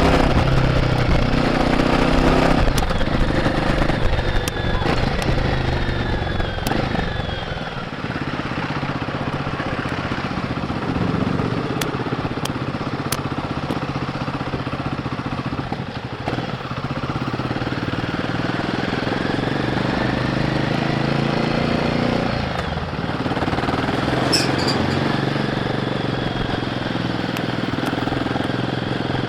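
Royal Enfield Guerrilla 450's single-cylinder engine running on the move through its stock exhaust, its revs rising and falling as the rider works the throttle and gears.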